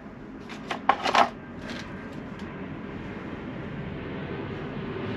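Small metal parts and tools clinking against each other on a workbench: a quick cluster of sharp clicks in the first couple of seconds, loudest about a second in, then a few lighter ticks. A low rumble builds slowly underneath.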